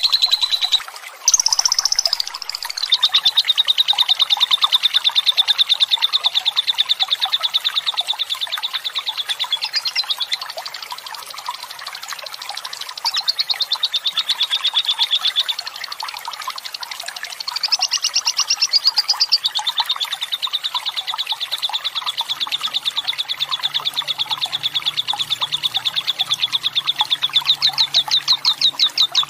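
Lovebird's long 'ngekek' chatter: a fast, unbroken run of sharp, high 'kek' notes that keeps going, its pitch lifting briefly a few times. Trickling water runs underneath.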